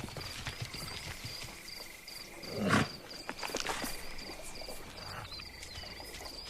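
Crickets chirping in a steady, evenly repeating rhythm as a nature background. A brief, louder sound stands out a little under three seconds in.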